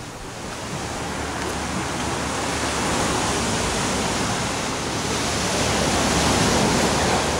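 Steady rushing of surf and wind, growing louder over the first few seconds.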